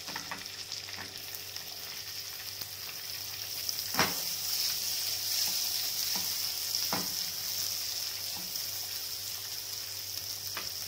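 Sliced onions sizzling in hot butter and oil in a nonstick kadai, stirred with a wooden spatula that knocks against the pan a few times, the sharpest knock about four seconds in.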